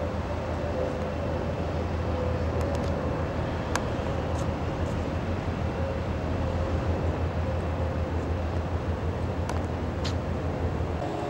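Steady low outdoor city rumble, like distant traffic, with a faint wavering hum and a few sharp clicks.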